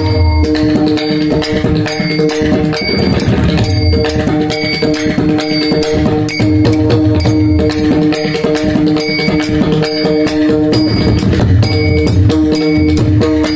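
Pakhawaj drum played in fast, dense strokes, over steady held notes from an accompanying instrument and a sharp metallic clink keeping time at about two to three a second.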